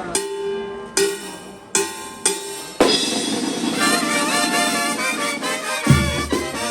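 A village wind band playing: about five separate struck hits with ringing chords in the first three seconds, then the wind instruments carry a wavering melody, and a bass drum starts beating near the end.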